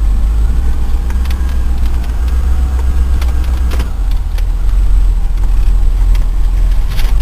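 Range Rover's fuel-injected 3.5-litre Rover V8 running steadily at low revs, a deep steady rumble, still on its cold-start enrichment.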